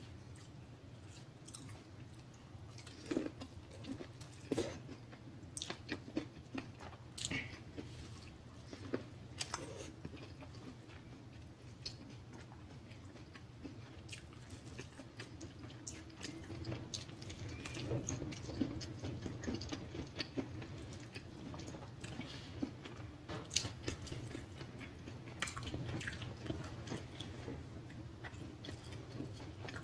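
Close-miked chewing and lip smacking of a person eating, with irregular sharp wet clicks and snaps scattered throughout. The sounds grow busier about halfway through.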